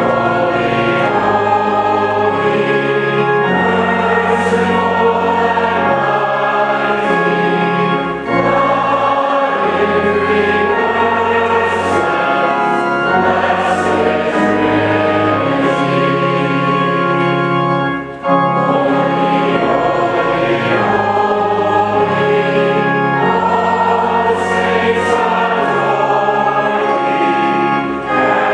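A hymn sung by many voices with organ accompaniment, in long phrases with brief pauses between them about every ten seconds.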